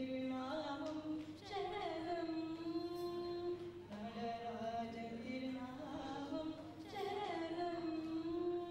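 Devotional hymn sung in long held notes, each phrase beginning with a slide in pitch, with a new phrase about every two to three seconds.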